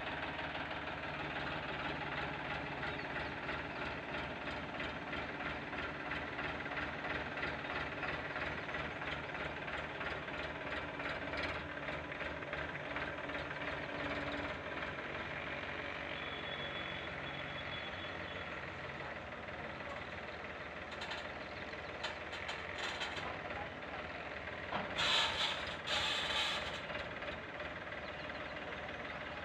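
A Farmtrac tractor's diesel engine runs steadily, with an even chugging rhythm, while it works the hydraulic front loader. Two short noisy bursts come near the end.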